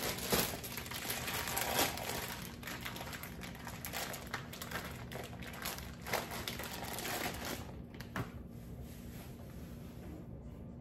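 Plastic bacon packaging crinkling and rustling as the strips are pulled out of it by hand, with many small crackles; it dies down to a few faint clicks near the end.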